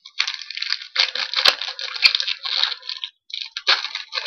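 A trading-card pack wrapper being torn open and crinkled, in two spells of loud rustling with a couple of sharp clicks in the middle.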